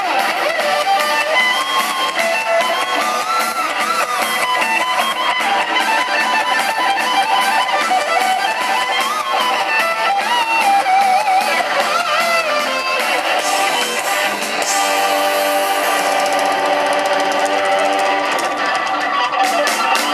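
Live rock band playing, with an electric guitar leading a melody that bends up and down in pitch; about 14 s in, the music settles into long held notes. Recorded from the crowd, thin in the bass.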